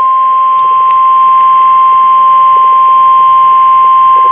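NOAA Weather Radio's 1050 Hz warning alarm tone: one loud, steady, high beep, the signal that a warning message is about to follow.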